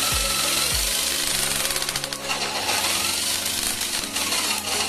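11 kg GSH 11E-type electric demolition breaker hammer running on test with its back cover still off, its motor and hammer mechanism giving a loud, steady rattling drone. This is the test run after a full service, and the repairer finds it fitted and working properly.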